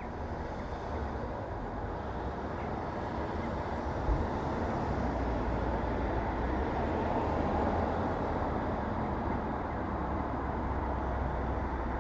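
Street ambience: a steady rumble of passing traffic, with a short knock about four seconds in.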